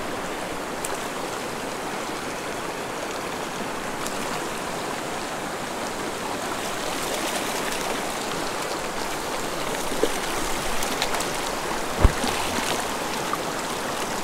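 Shallow, rocky mountain creek rushing steadily over stones, with a few faint brief splashes and one sharp knock near the end.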